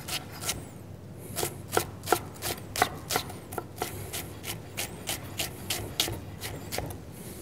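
Chef's knife chopping onion on a wooden cutting board, a steady run of knife strikes about three a second as the onion is cut into small, medium-fine cubes.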